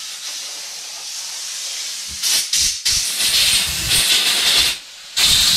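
Compressed-air blow gun hissing as it blows air through spray-gun parts to clear them. The blast gets louder about two seconds in, stops near the end, then comes once more in a short burst.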